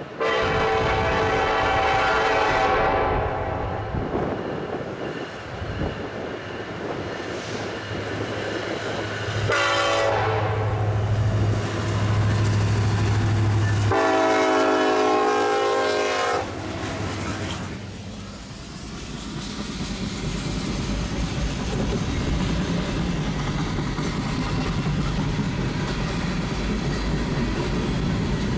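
Norfolk Southern diesel freight locomotive sounding its horn three times: a long blast of about four seconds, then two shorter ones, the last as it passes close by, over a low engine hum. After that the freight cars roll past with a steady rumble and clickety-clack of wheels on the rail joints.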